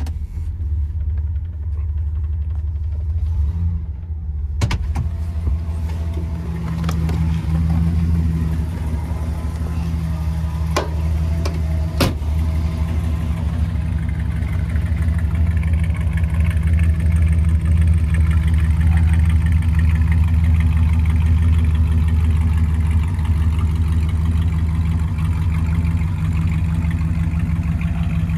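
Ford 390 FE V8 running at a steady idle with a low exhaust rumble, still cold from a cold start. A few short sharp knocks are heard in the first half.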